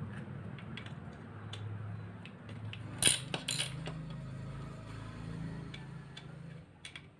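Metal clinks and clicks of a socket wrench and extension bar working the bolts of an aluminium manual-transmission case, with a louder clatter of metal about three seconds in, over a steady low hum.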